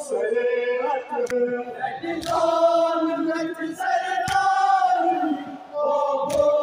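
A group of voices chanting a Kashmiri noha, a Muharram lament, in chorus with long held phrases, and a sharp slap about every two seconds.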